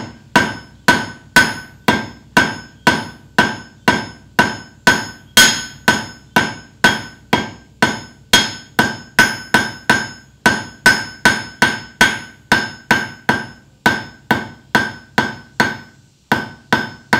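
Hand hammer drawing out a taper on a red-hot quarter-inch steel bar on the anvil: steady blows about two and a half a second, each with a ringing note, and a brief pause near the end.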